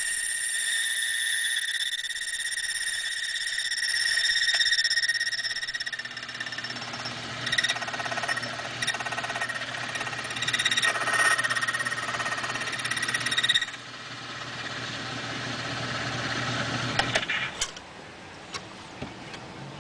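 ILCO 2183 automatic key cutting machine cutting a blank key. Its motor and cutting wheel run with a steady high whine, then comes a stretch of rapid, uneven pulsing as the cutter works along the key, which stops abruptly about two-thirds of the way through. After that a lower hum and a few sharp clicks.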